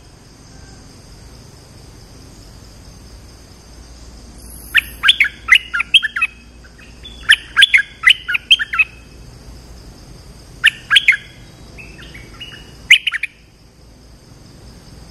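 Bulbul song: bursts of quick, chirpy warbled phrases, starting about five seconds in and coming in four bouts with short pauses between them, over a steady faint high tone.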